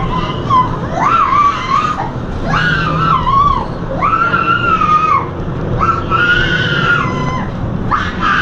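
Young girl screaming in a tantrum: a run of long, shrill cries about a second each, pitch bending up and down, with short breaks between them, over a steady low rumble.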